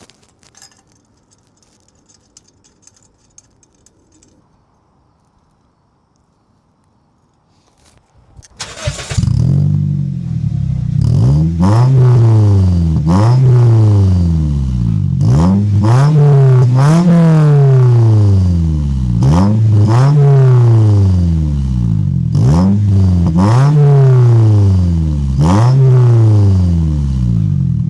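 Toyota Corolla engine starting about a third of the way in, then revved in repeated blips, each rising and falling, about one every two seconds, with a cheap turbo whistle fitted in its aftermarket exhaust tip.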